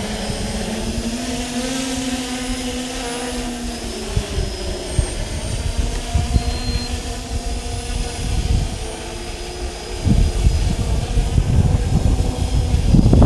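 Multirotor drone's electric motors and propellers humming as it hovers low and then flies off, the pitch rising and falling with throttle. Wind rumbles on the microphone from about ten seconds in.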